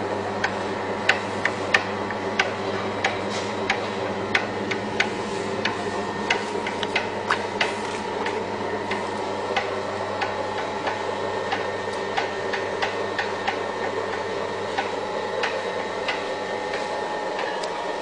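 SAP-610 semi-automatic paper punching machine running: a steady motor hum with a sharp click about every two-thirds of a second as the punch head cycles. The clicks grow fainter after about eight seconds.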